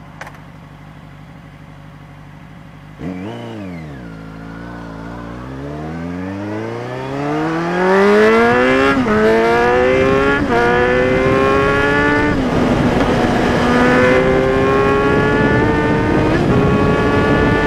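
Kawasaki Z1000 inline-four with an aftermarket Hurricane Evolution exhaust tip, running steadily, then accelerating hard on the road, its pitch climbing. Four upshifts are heard, each a sudden drop in pitch, about 9, 10.5, 12.5 and 16.5 seconds in. The exhaust note is very loud.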